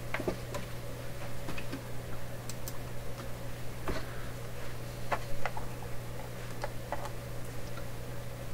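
Scattered light clicks and taps from handling at a workbench, a few sharp ones standing out, over a steady low hum.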